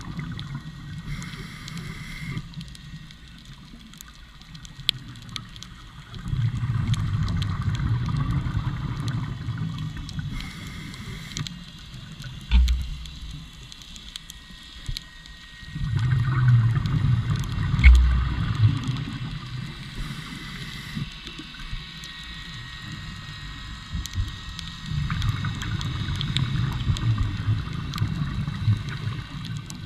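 Scuba regulator breathing heard underwater: a short hiss at each inhale, then a long burble of exhaled bubbles, about three breaths in all. Two dull thumps come in the middle.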